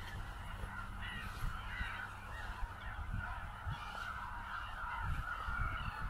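A flock of water birds on the marsh calling continuously, many overlapping calls at once, with low thumps and rumble underneath.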